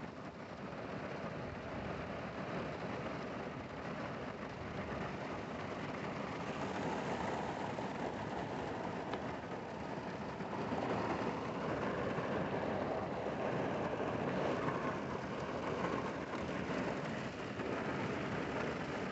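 Heavy rain falling on a car's roof and windows, heard from inside the cabin as a steady rushing noise. It grows a little louder about halfway through.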